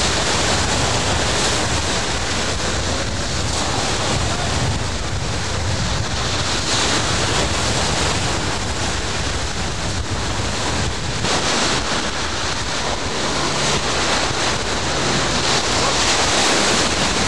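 Sea surf washing and breaking on the shore, with wind buffeting the microphone, a loud, steady rush without a break.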